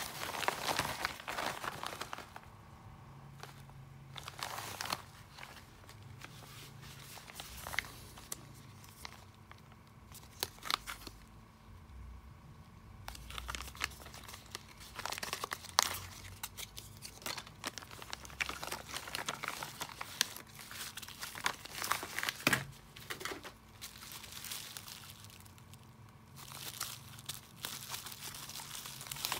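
Plastic mailer and bubble-wrap packaging crinkling and rustling as it is handled and opened, in irregular bursts with brief pauses and a few sharper crackles.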